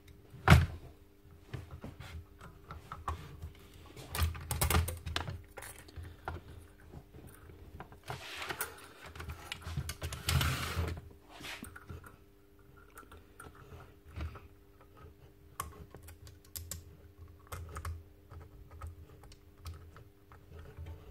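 Hands reassembling a dismantled Makita DBN600 cordless nailer: scattered clicks and knocks of metal and plastic parts being handled and fitted, with one sharp knock about half a second in and a longer scraping rustle around the middle.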